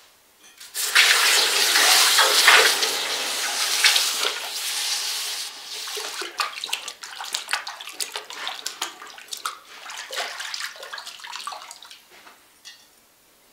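A freshly cast bronze frying pan, still hot from the mould, quenched in a bucket of water. A loud steam hiss starts about a second in and lasts a few seconds, then breaks up into crackling, bubbling and splashing as the pan is worked in the water. It dies away near the end as the pan is lifted out with water running off it.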